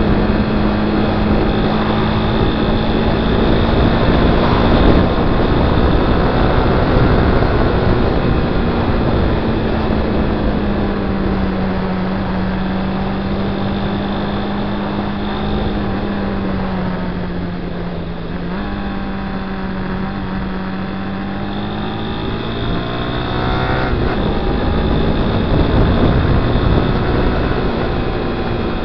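Honda Twister 250's single-cylinder engine running at cruising speed under way, with wind and road noise over the microphone. The engine note eases off a little past the middle, dips briefly, then climbs again as the bike accelerates near the end.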